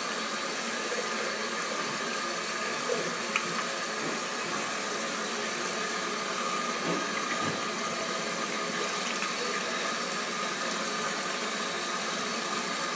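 Water running steadily from a tap into a ceramic sink basin while hands are washed under it: an even hiss with a faint steady whine, and two light knocks about three seconds in.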